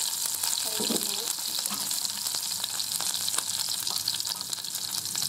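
Sliced shallots frying in hot oil in a pot: a steady sizzle full of fine crackling.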